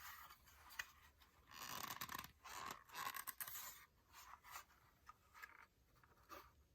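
Faint scraping and clicking of a fire alarm's parts being worked apart by hand: a sharp click about a second in, two stretches of scratchy scraping, then a few lighter clicks.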